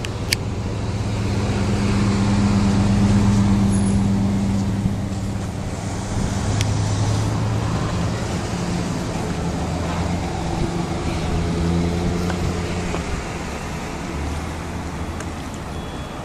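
Motor vehicle running: a steady low engine drone over road noise, its pitch shifting a few times.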